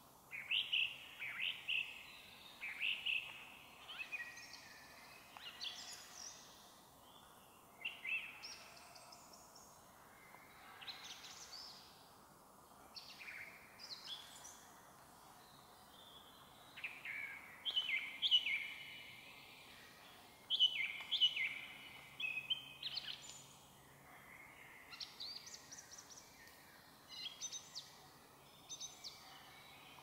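Song thrush singing loud, short phrases, several repeated in quick succession, in bouts with brief pauses between, over faint calls of other small birds in the woods.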